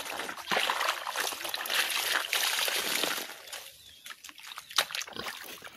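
Water splashing and sloshing as clothes are washed by hand, in irregular bursts for about three seconds, then quieter, with a couple of sharp knocks near the end.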